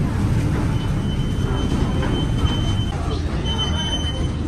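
Steady low rumble of a docked passenger ferry's engines, with indistinct voices of passengers in the background.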